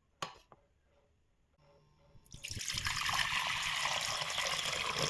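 A cup of water being poured in a steady splashing stream, starting about two seconds in and stopping abruptly at the end, after a single sharp click near the start.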